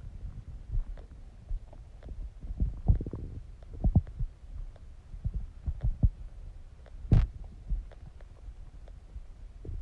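Stomach gurgling during digestion: irregular low pops and bubbling over a low rumble, with one louder, sharper pop about seven seconds in.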